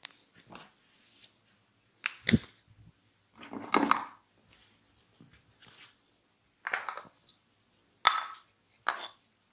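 Hands-on massage and cracking sounds: several separate sharp snaps and pops with quiet gaps between them. The loudest, a double snap with a low thud, comes about two seconds in, and a longer, softer sound falls near the middle.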